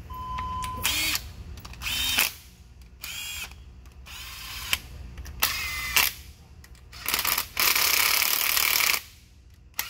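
Cordless ratchet spinning water pump mounting bolts in, in about seven short motor bursts with a whine, the longest near the end, as the bolts are run down snug before torquing.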